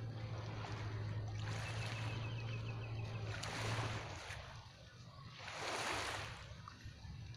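Small waves washing in at the water's edge in slow swells, with the steady low hum of a distant boat engine that fades out about four seconds in.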